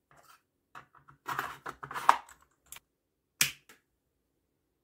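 A flat drive being slid into a slot on the side of a plastic keyboard-style computer case: short scraping and several clicks, ending in a single sharp click about three and a half seconds in.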